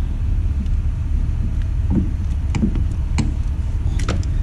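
A few separate light clicks and taps of a socket and bolt being handled at the engine, over a steady low rumble.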